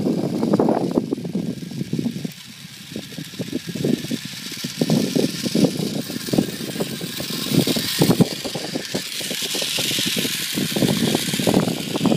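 Radio-controlled Baja Bug monster truck driving across beach sand on homemade paddle tires, a hiss that swells near the end as it comes close, under uneven wind buffeting on the microphone.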